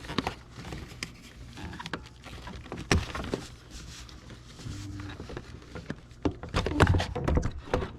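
Plastic clicks, knocks and rattles as electrical connectors and interior trim are worked loose inside a car, with a burst of quick clicks about six to seven seconds in.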